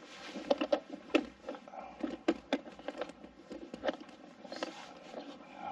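Handling noise: irregular clicks, taps and light rustling as wires and a light fixture are worked into an electrical box.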